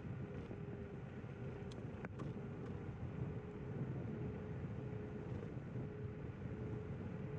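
Zero 10x electric scooter riding along a paved path: steady tyre rumble and wind noise over a faint steady whine from the hub motor, with a couple of small clicks about two seconds in.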